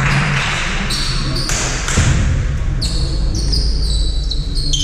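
Basketball game sounds on a sports-hall court: sneakers squeaking in short high chirps on the floor, with the ball bouncing.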